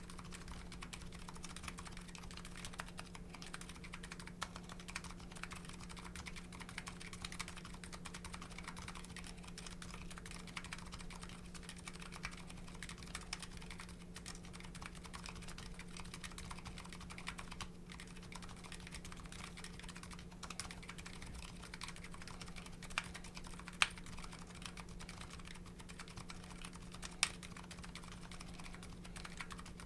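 Continuous typing on a custom mechanical keyboard with MetaKeebs MetaPulse electrocapacitive switches and GMK Hennessey keycaps. A rapid run of key presses is broken by a few sharper, louder key strikes near the end.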